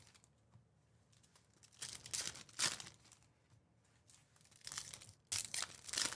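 Foil wrapper of a Topps Star Wars Galaxy Chrome trading-card pack crinkling and tearing as it is opened by hand, in two bursts: one about 2 seconds in and a longer one near the end.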